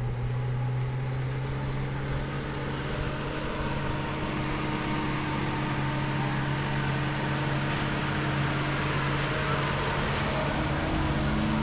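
A motor vehicle's engine running steadily with road noise, a low even hum that grows slightly louder.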